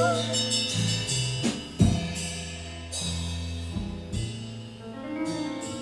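Instrumental break in a soul-gospel song: bass and sustained chords with a few drum and cymbal hits, no singing.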